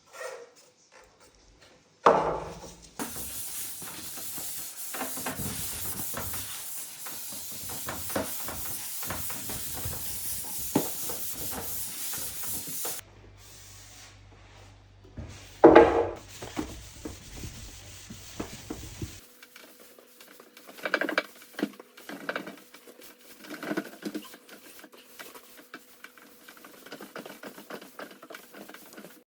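Hand-work on a wooden tabletop in several cut-together takes: a long stretch of even, hissing abrasion, then a sharp knock, then a run of irregular rubbing strokes over a faint steady hum.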